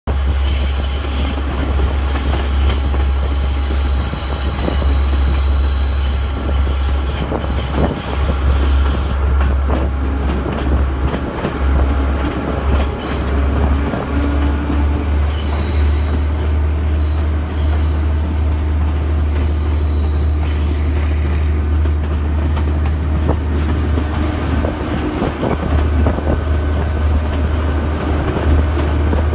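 Passenger train running along the track: a heavy, steady low rumble throughout, with a thin high-pitched wheel squeal for about the first nine seconds that cuts off suddenly.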